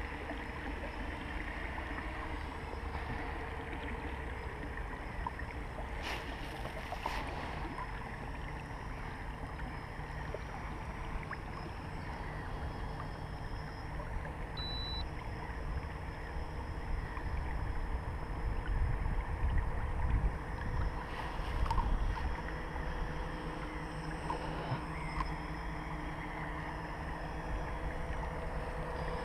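Wind rumbling on the microphone and small waves lapping against an inflatable kayak's hull, with louder gusts about two-thirds of the way through.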